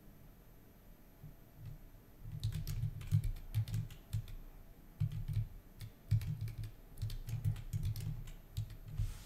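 Typing on a computer keyboard: quick, irregular runs of keystrokes that start about two seconds in.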